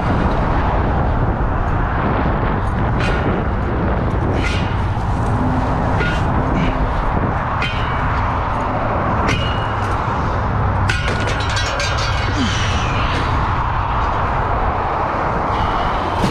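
Steady roar of highway traffic with a low rumble, broken by occasional short knocks and clatter.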